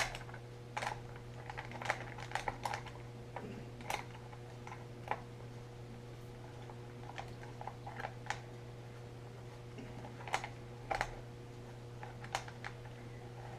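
Irregular small clicks and taps of a Lionel whistle tender being handled and set onto the track, over a faint steady low hum.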